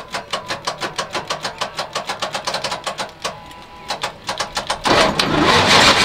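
Semi truck's diesel engine cranking on a failing starter, with an even chugging of about five strokes a second and a short lull about three seconds in. It then catches and starts running about five seconds in.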